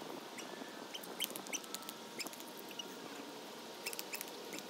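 Small birds chirping: scattered short, high chirps over a faint outdoor hiss, with a few light clicks.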